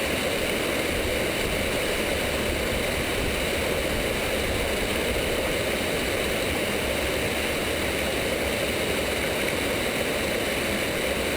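Small mountain stream rushing and burbling in a steady, unbroken wash of water noise.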